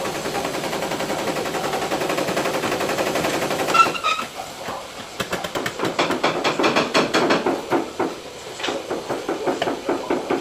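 Rapid light taps on the sheet-steel fender of a Citroën C3 during paintless dent repair, the panel being worked smooth. A dense run of taps gives way near four seconds to one sharper ringing metallic click, then slower runs of about five or six taps a second.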